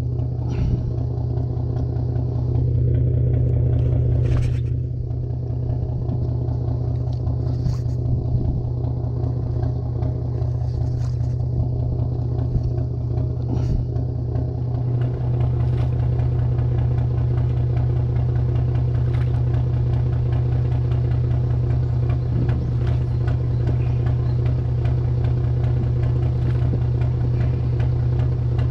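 Boat engine running at a steady idle, a low even hum, with a few faint knocks about 4, 8, 11 and 14 seconds in.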